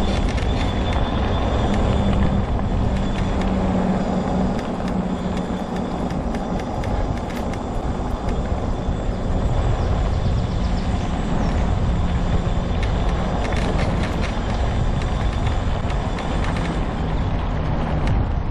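Homemade all-wheel-drive mobility scooter driving steadily: a motor whine that fades and returns, over the continuous rumble of its wheels on the trail.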